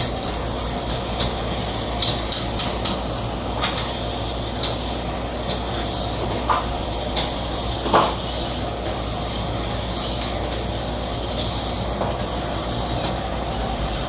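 Lathe running steadily while a scooter's brake-drum hub is skimmed and polished on it, with repeated short hissing scrapes of tool or abrasive on the metal and a single knock partway through; the worn, grooved drum surface is being cleaned up.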